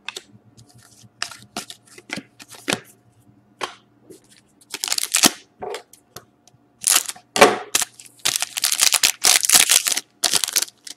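Trading cards being handled with a few light clicks and taps, then an Upper Deck Artifacts hockey card pack's wrapper crinkling and tearing in loud crackly bursts over the second half as it is opened.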